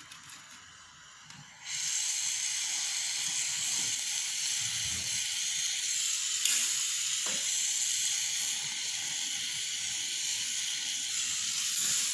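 Jeweller's gas torch flame hissing steadily, switched on about one and a half seconds in.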